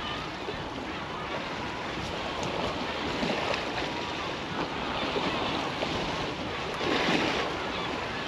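Wind buffeting the microphone over the wash of high-tide water against the estuary bank, a steady rushing noise, with a short louder rustle about seven seconds in.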